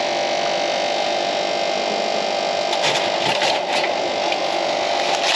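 Frozen-food vending machine whirring steadily with a mechanical hum. About three seconds in come a few clicks and plastic rustling as a packaged tray is taken out through the delivery flap.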